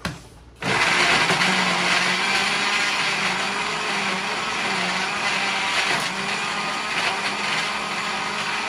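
Glass-jar countertop blender: a short knock, then its motor starts suddenly under a second in and runs steadily, churning a thick mixture of snack chips, pastries, gummies and drink.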